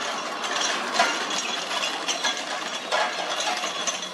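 Homemade pedal drive built from an angle grinder's gear head, pedalled by foot: the gears whir and rattle steadily, with a louder click about once a second.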